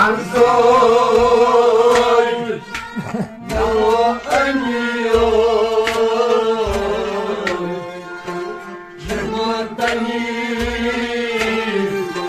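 A man singing a Kashmiri song with vibrato while playing harmonium chords, accompanied by hand-drum strokes every second or two.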